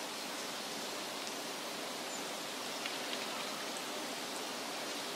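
Water flowing steadily down a shallow stream channel: an even rushing hiss.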